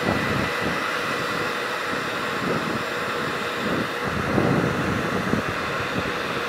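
Handheld hot-air blower running steadily, blowing hot air over a glass syringe barrel to warm and thin the cooled, thickened oil inside, with an irregular rumble of the airflow buffeting the microphone.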